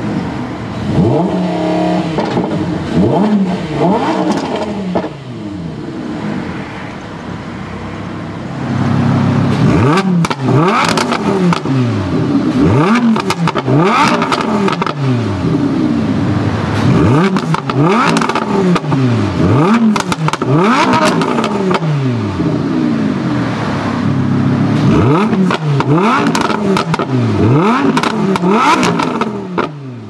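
Lamborghini Huracán LP610-4's 5.2-litre V10, in Strada mode, revved repeatedly in neutral while parked. Each quick throttle blip rises in pitch and falls back to idle, coming about once a second. The revs get louder from about nine seconds in.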